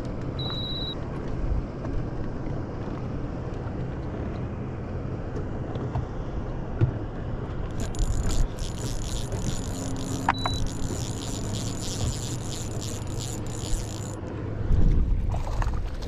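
Spinning reel being cranked to wind in a hooked fish, a dense whirring hiss for about six seconds midway. A steady low hum runs underneath, and a short high electronic beep sounds near the start.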